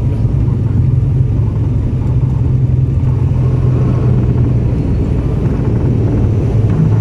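Turboprop airliner rolling out on the runway after touchdown, heard from inside the cabin: a steady loud engine and propeller drone with a low hum, over the rumble of the wheels on the runway.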